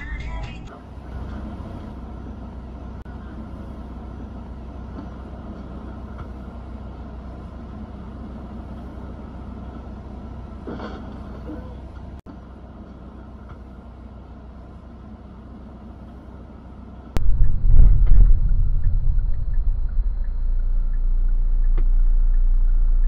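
Road and engine noise inside cars, picked up by dash cam microphones, changing at cuts between clips. It is steady and moderate at first, then much louder and lower from about 17 seconds in.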